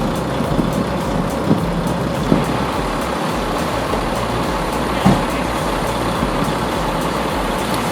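Heavy diesel machine running steadily, with a few brief knocks about one and a half, two and a half, and five seconds in.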